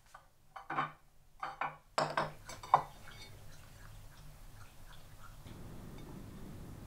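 Ceramic divided serving plates and a wicker basket being set down and handled on a tabletop: a few light knocks and clacks in the first three seconds, the sharpest near the end of them, then only faint small ticks of handling.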